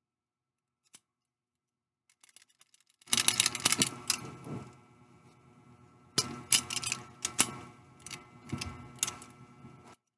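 Rapid clicking and rattling of a small hard object handled in the hands, in two bursts: one about three seconds in and one starting about six seconds in, after a single faint tick about a second in.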